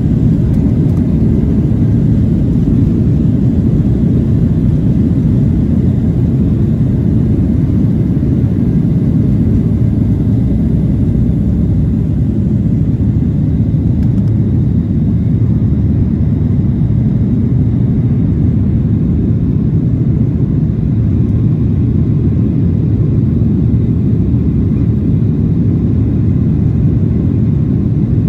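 Boeing 737-700 jet heard from inside the cabin during takeoff and initial climb: its CFM56-7B engines at takeoff thrust make a loud, steady, deep rumble.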